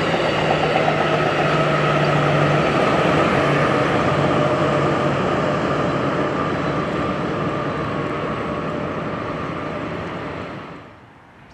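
Passenger train with a pair of Siemens SC-44 Charger diesel-electric locomotives at its end running past and pulling away across a bridge: the wheels rumble on the rails, and a steady low engine hum is heard for the first few seconds. The sound fades as the train recedes, then cuts off suddenly near the end.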